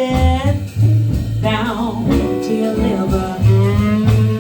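Live soul-jazz band playing: a sung note ends about half a second in, then the band fills between vocal lines over a steady bass.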